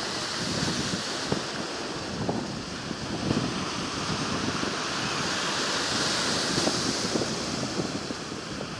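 Sea waves washing in against the shore, with wind buffeting the microphone; the wash swells about six seconds in.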